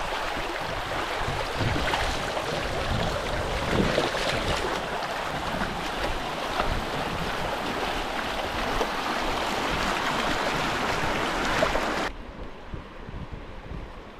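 Rushing river water, a steady splashing hiss. It cuts off suddenly about twelve seconds in, leaving a much quieter hiss.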